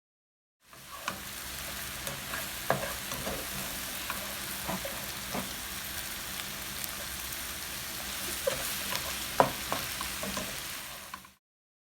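Food frying in a hot pan: a steady sizzle with scattered crackling pops.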